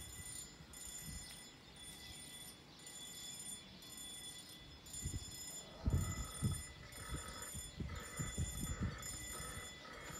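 Level-crossing warning bell ringing in an even repeating cycle of just under a second, the signal that the barriers are about to close for a train. A few low thumps come in the second half, the loudest about six seconds in.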